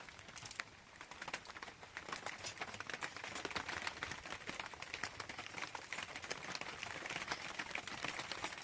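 Dense, irregular patter of rain drops hitting a surface, growing slightly louder about two seconds in.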